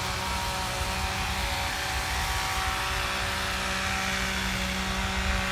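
A steady engine drone with a low rumble and several held tones, even in level throughout.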